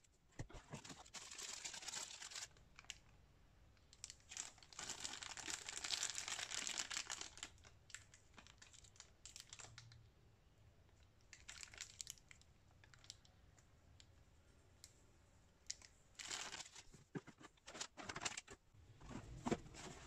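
Packaging crinkling and rustling as it is handled, in several irregular bursts with a few sharp clicks and short pauses between.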